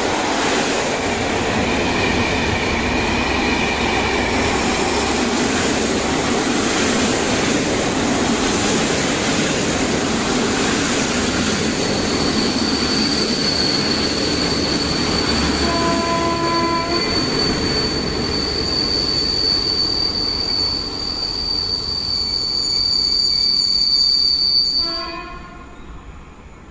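Intercity passenger coaches rolling past close by as an electric-hauled train arrives, a steady wheel-on-rail rumble with a steady high-pitched squeal setting in about halfway and a few short squeals. The noise falls away sharply as the last coach clears, near the end.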